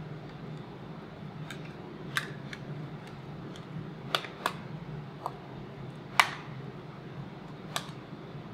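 Sharp plastic clicks and snaps from a clear Griffin Survivor + Catalyst waterproof iPhone case being worked by hand, its latches and parts clicking about six times at uneven intervals, the loudest about six seconds in. A steady low hum runs underneath.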